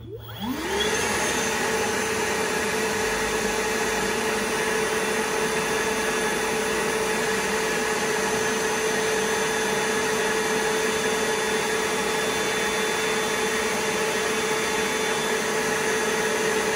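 Milwaukee PACKOUT wet/dry vacuum switched on at high speed. The motor spins up with a rising whine in the first second, then runs steadily with a constant whine over a rushing airflow hiss.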